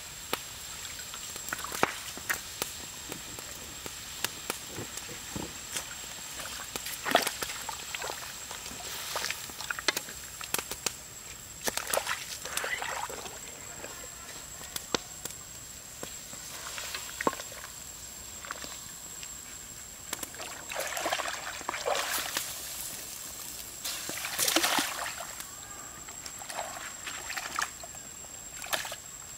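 Water sloshing in an iron wok as a whole snake in it is stirred with a wooden spatula, with scattered sharp knocks and clicks.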